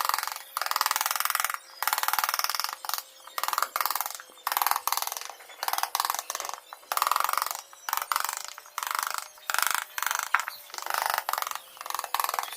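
A hand tool working wood in repeated back-and-forth strokes, about one a second, a dry scraping like sawing or rasping.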